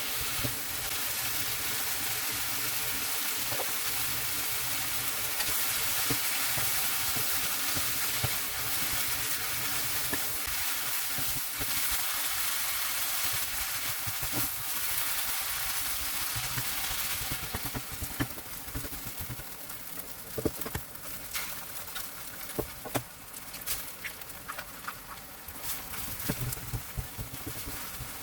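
Food sizzling in a frying pan while it is stirred. About two-thirds of the way through, the sizzle drops off and scattered clicks and knocks of the stirring utensil against the pan take over.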